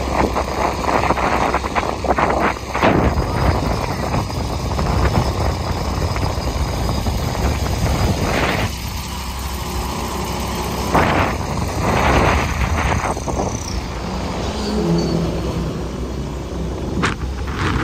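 Wind rushing over the microphone and road noise on a moving motorcycle, swelling in several louder gusts.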